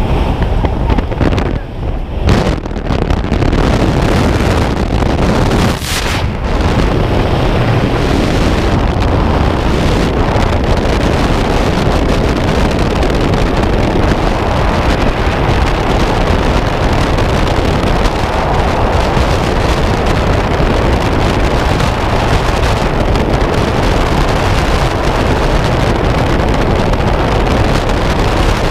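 Loud, steady freefall wind noise buffeting a helmet camera's microphone. In the first few seconds, during the exit, it is mixed with the jump plane's engine and wind at the open door.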